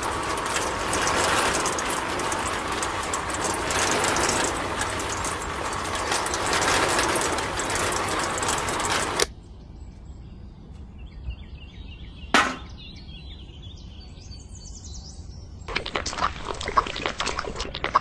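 Miniature DIY concrete mixer's small electric motor spinning its tin-can drum with wet concrete mix churning inside, a loud, even rattling rush that cuts off suddenly about nine seconds in when it is switched off. A single sharp knock follows a few seconds later, and near the end comes crackly scraping as the drum is tipped and the mix poured out.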